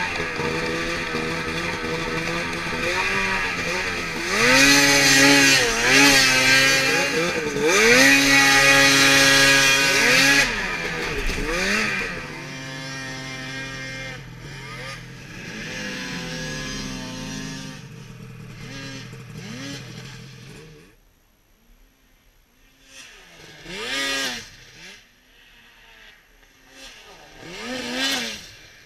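Two-stroke snowmobile engines running and revving hard, the pitch swinging up and down through the first dozen seconds, then fading out. After it goes quiet about two-thirds of the way in, a snowmobile passes close twice, each pass rising and falling in pitch.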